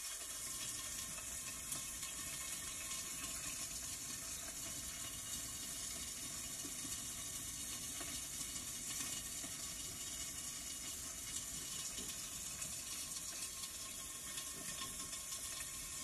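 Steady, even hiss of running water, like a tap running, with no other distinct events.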